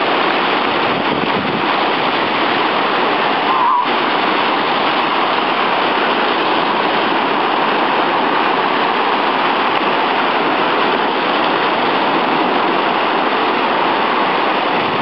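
Sea surf breaking and washing up the beach, a steady loud rush of foaming waves.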